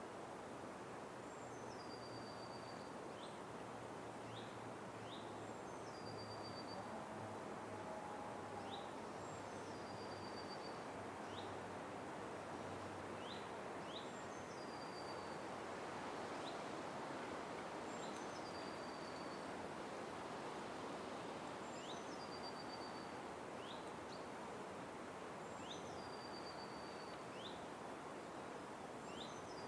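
Forest ambience: a steady hiss of background noise, with a bird repeating a short high call about every four seconds, each call dropping in pitch and then holding briefly, and short rising chirps in between.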